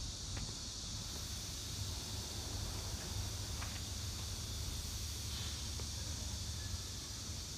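Sinotruk HOWO tractor truck's diesel engine idling steadily: a low, even hum under a constant hiss.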